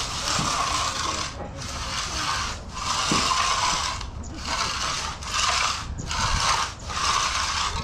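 A stiff concrete broom dragged across freshly poured concrete in repeated scratchy strokes, about one a second, laying down the broom finish.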